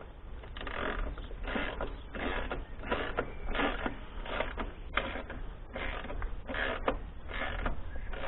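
Ratchet wrench clicking in short repeated strokes, about two a second, as a motorcycle's rear axle nut is screwed back on.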